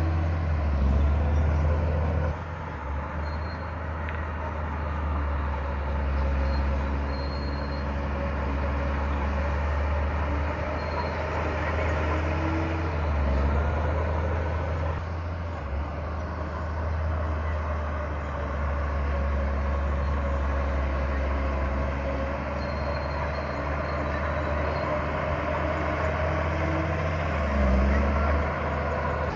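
Crawler bulldozer's diesel engine running under load while pushing stone. The engine note drops about two seconds in and rises again near the end.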